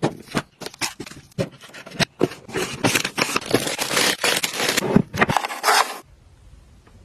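Close, rapid clicks, scrapes and crinkling of household items and packaging being handled and set in place, stopping abruptly about six seconds in.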